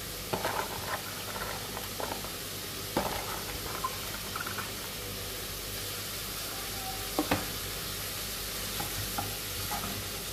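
Stir-fried vegetables sizzling with a steady hiss in a granite-coated wok as bean sprouts are added and stirred in with a wooden spatula, with a few sharp knocks against the pan.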